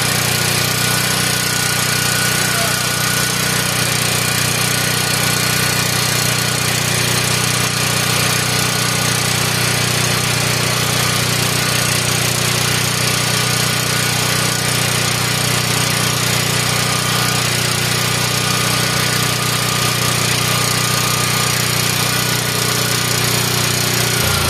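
Generator set's engine running steadily at a constant speed, with no change in pitch.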